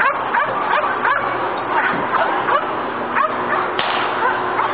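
Bouvier des Flandres dog yipping and whining without pause, several short high calls a second, each rising in pitch.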